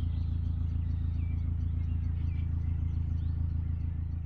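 A steady low engine hum with an even, fast pulse, while small birds chirp faintly over it.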